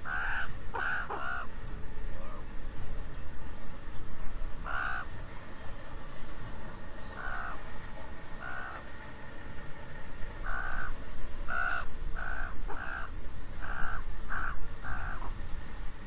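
Common raven calling: a series of about fifteen short, fairly high calls, some single and some in quick runs, over steady background noise from the field recording.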